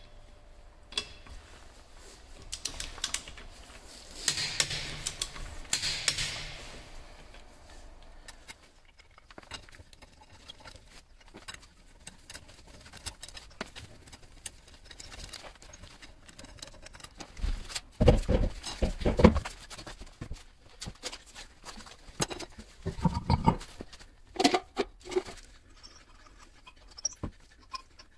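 Lug wrench work on car wheel bolts: scattered metal clicks and clinks of a torque wrench, socket and breaker bar on the bolts, with a few heavier knocks about two-thirds of the way through, the loudest sounds.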